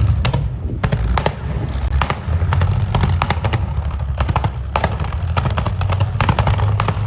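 Tiger II (King Tiger) tank's engine running with a steady low rumble, broken by many sharp, irregular cracks and pops: the engine misfiring.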